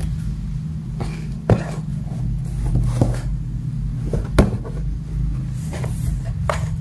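Cardboard box being pawed, pulled and knocked about by two kittens wrestling over it, with scuffing and a handful of sharp knocks, the loudest about a second and a half in and again just after four seconds.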